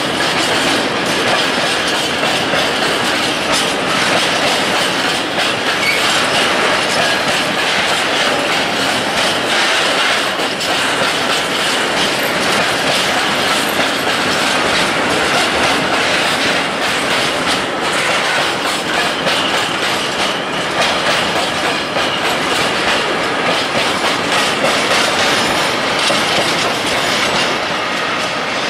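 A freight train of rail tank wagons rolling past close by: a steady rumble of steel wheels on rail, with repeated clicks as the wheels run over the rail joints.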